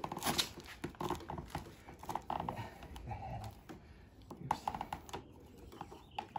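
Rope lacing of a nagado taiko being pulled tight through the rig: scattered light clicks, rasps and rustles as the cord slides over the dowels and a screwdriver pries it out against their metal sleeves.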